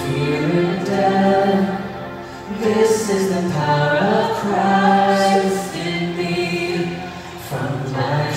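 A group of voices singing a worship song together, holding long notes in phrases, with short breaths between phrases about two and a half seconds in and again near the end.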